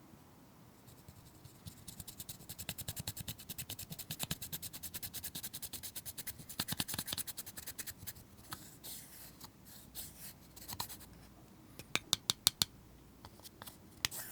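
Slime being worked by hand, giving a fast run of small sticky clicks for several seconds, then slower scattered pops and a few sharper snaps near the end.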